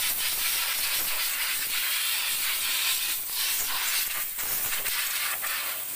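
Compressed-air blow gun hissing steadily as it blasts dirt out of a car's air-con condenser and radiator fins, dipping briefly a couple of times midway.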